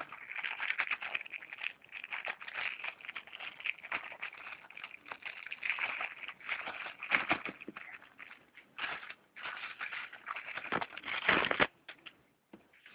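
Plastic and cardboard packaging crinkling and crackling as it is handled, with many small clicks and knocks. A louder burst of handling comes near the end, then it goes quiet.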